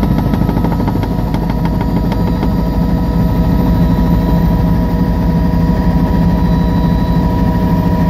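Helicopter engine and rotor running steadily and loudly in flight, a constant drone with a fast pulsing rotor beat.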